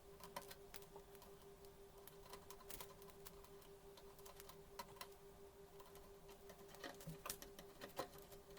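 Faint, irregular clicks and taps of small parts being handled while an induction cooktop is reassembled, with a few sharper clicks near the end, over a faint steady hum.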